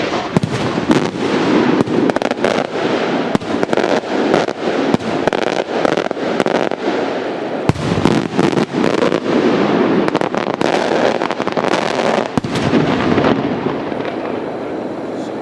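Maltese beraq aerial firework shells bursting in a dense barrage of sharp bangs over continuous crackling. Two heavier bangs come about eight and twelve seconds in, and the barrage thins out over the last couple of seconds.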